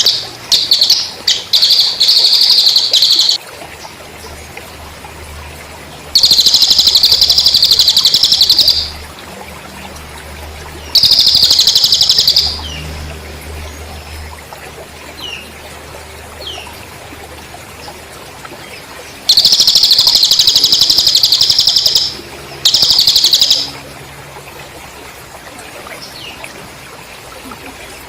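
Masteran training track of cililin bird and cricket sounds: about five loud, high-pitched, rapidly pulsing trills of one to three seconds each, with a few faint short chirps between them, over a steady trickling stream.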